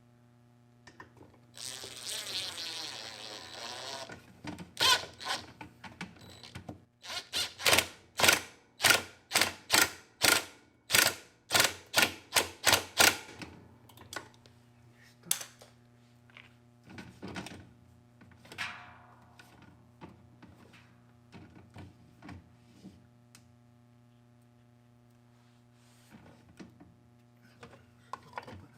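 A brief buzzing whir, then a quick run of about fifteen sharp knocks, a little over two a second, over a steady low hum. Scattered light clicks and another short buzz follow.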